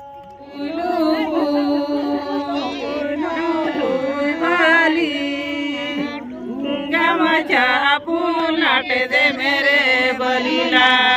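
Several women singing together without instruments, a chant-like melody with long held notes, starting about half a second in.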